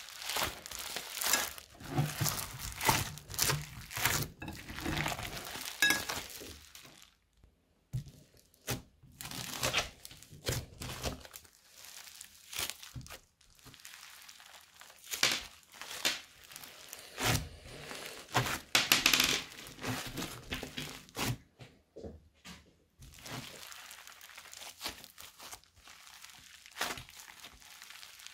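Hands squeezing and stretching a thick slime loaded with foam beads and plastic bag scraps: irregular runs of crinkling and crackling as the slime is worked, with two brief lulls.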